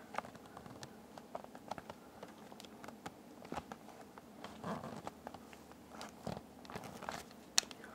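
Faint handling noise: scattered small clicks and rustles from hands moving the audio interface and the camera, with one sharper click near the end.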